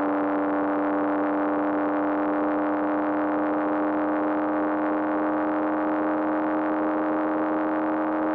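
Racing car engine held at constant high revs, a steady buzzing note that never changes pitch, cutting off abruptly at the very end.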